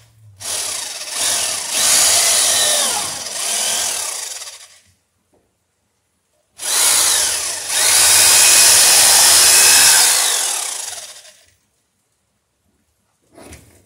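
Corded electric drill boring angled holes up through a wooden plank for its nails, in two runs of about four to five seconds each with a pause between. The drill's pitch falls during each run.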